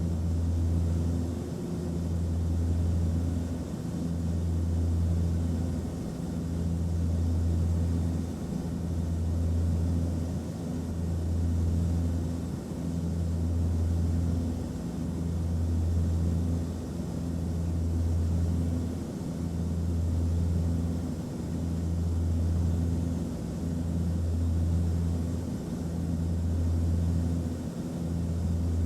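Aircraft cabin noise: a steady low drone with a faint hiss above it. The drone swells and dips about every two seconds.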